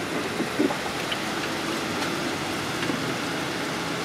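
A steady hiss, with a few faint clicks around half a second in as stacks of lead battery plates are handled.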